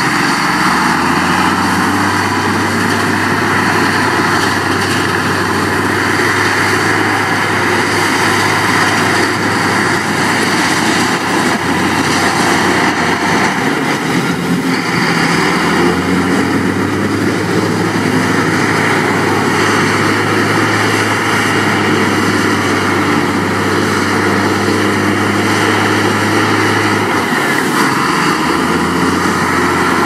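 Heavy diesel earthmoving machinery running steadily, its low engine note shifting briefly about halfway through and again near the end as the load or revs change.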